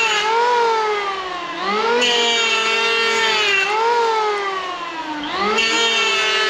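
Powerhouse PHM-1900BX 700-watt electric planer running with a high whine, cutting a palo china board in repeated passes. Its pitch sinks as the blades bite along the board and jumps back up between strokes, about three times.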